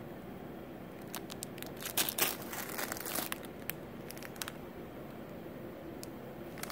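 Clear plastic bags of fashion jewelry crinkling as they are handled, in scattered short crackles, over a steady low hum.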